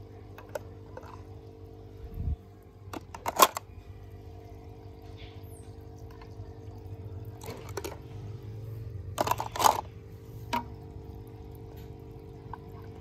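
Plastic toys and a toy fishing rod's hook knocking together in a water-filled tank, with sharp clicks a few times, loudest about three and a half seconds in and twice just after nine seconds, and light sloshing of water over a steady low hum.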